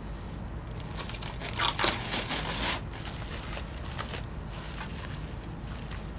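Packaging being handled and crumpled, a crinkling rustle that is loudest about two seconds in, with a few fainter crackles after.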